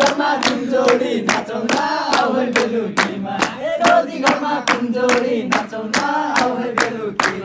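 A group of young men singing a Nepali dohori song together, with steady hand clapping keeping the beat at about four claps a second.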